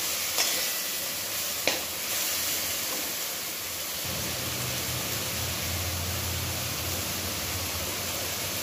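Boiled banana flower, potato and chickpeas frying in a kadai with a steady sizzle while a metal spatula stirs them, with a couple of sharp scrapes or knocks of the spatula against the pan in the first two seconds.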